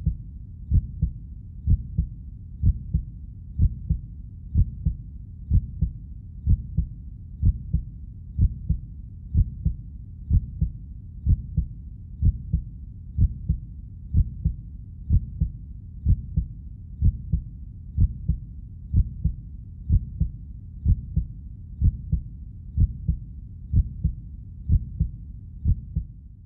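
Heartbeat sound, low muffled thumps in a steady rhythm of about one beat a second.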